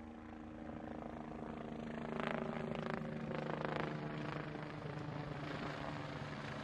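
Steady drone of an engine or motor-driven machine, holding one pitch throughout. Several sharp clattering knocks come between about two and four seconds in.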